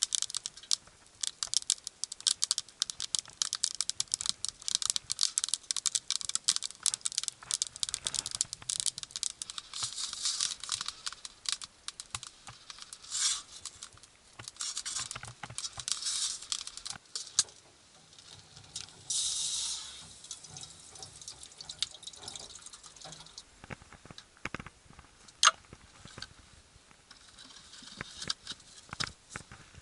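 Small twigs crackling and popping as they burn in an open-doored metal wood stove. The crackling is dense and rapid at first and thins out after about fifteen seconds, with a few sharper snaps.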